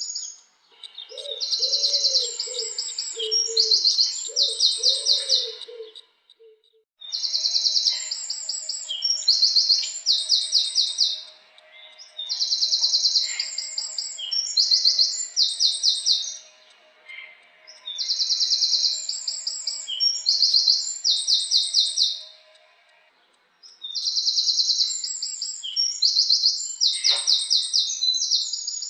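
A wren singing: five loud bursts of rapid, high trills and repeated notes, each lasting about four to five seconds, with short pauses between them. Lower, softer curving calls sound underneath during the first song.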